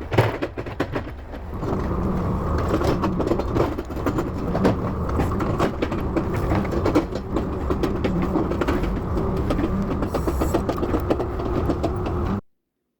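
Case 680G backhoe's diesel engine running, with some clattering knocks at first, then growing louder about a second and a half in as it works under load. The sound stops abruptly near the end.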